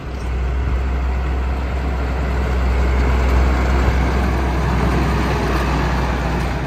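Large tractor engine running close by with a steady deep drone that swells slightly in the middle and eases near the end.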